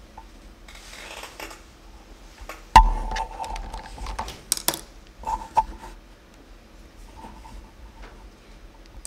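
A sharp knock with a brief ringing note, as of a hard object set down or struck, then a few lighter clicks and clinks of small objects being handled.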